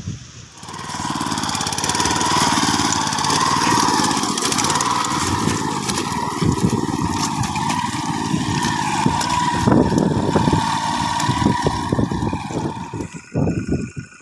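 Small engine of an ISEKI PC4 rice transplanter running steadily. It comes in about half a second in and drops away about a second before the end.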